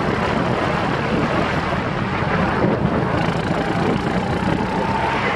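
Racing go-kart engine running steadily at speed, heard from an onboard camera mounted on the kart, with wind rushing over the microphone.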